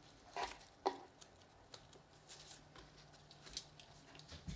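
Faint rustling of leaves and stems, with a few light clicks, as cut flower stems are handled and pushed into a chicken-wire floral arrangement.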